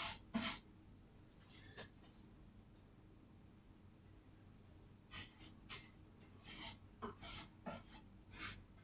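Paintbrush strokes on a wooden nightstand: faint, short scratchy brushings, a couple near the start and a quick irregular run of them through the second half.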